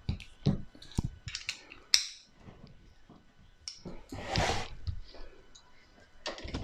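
Screwdriver and loose bits being handled: a few sharp metallic clicks and taps in the first two seconds, then a short rustling scrape about four seconds in.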